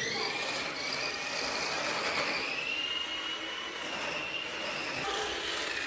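1/16-scale 4WD electric RC drift car driving: its motor and gears give a steady whine that rises a little over the first couple of seconds and then holds, over a rushing noise from the drivetrain and tyres.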